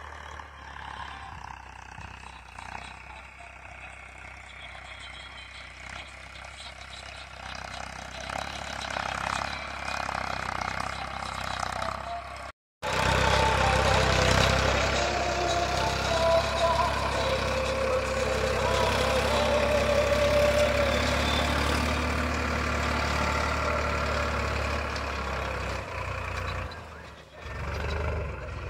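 Tractor engine running steadily. The sound drops out for an instant about halfway through and comes back louder.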